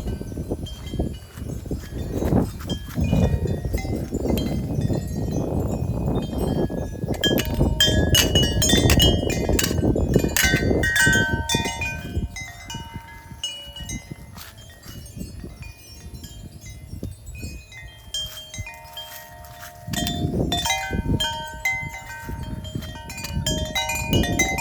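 A wind gust buffeting the microphone with a low rumble while wind chimes clang and ring in it. Around halfway through the wind eases and the chimes ring on with clear, lingering tones, until another gust rumbles on the microphone near the end.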